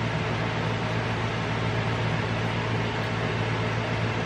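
Steady low hum under an even hiss, unchanging throughout: background room noise from something running in the room.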